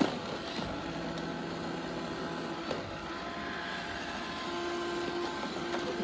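iRobot Roomba robot vacuum running on carpet: a steady whir from its motors and brushes, with a low hum that comes and goes. A couple of light knocks come as a dog's paw presses on its plastic top.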